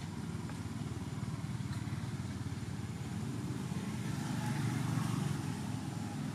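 Steady low rumble of motor traffic, swelling a little about five seconds in.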